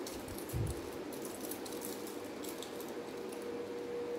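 A small clear plastic packet rustling and crinkling as it is handled and opened by hand, with a few light clicks and a dull bump about half a second in. A faint steady hum runs underneath.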